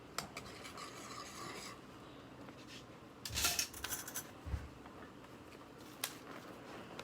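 Kitchen utensils clinking and scraping against dishes and pots as garlic and seasonings are spooned in, with a louder scrape about three and a half seconds in, a dull thump just after, and scattered clicks.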